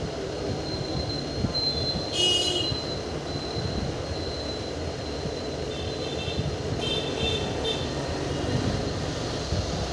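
Passenger train running on the rails: a steady rumble of wheels and coaches, with short high-pitched squeals about two seconds in and again from about six to eight seconds in.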